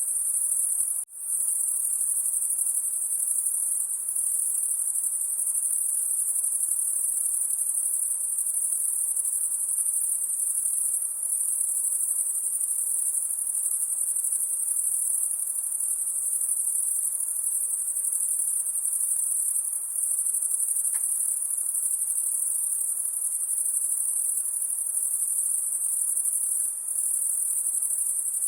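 A high-pitched insect chorus: a continuous, shrill, unvarying trill. The sound drops out for an instant about a second in, then carries on unchanged.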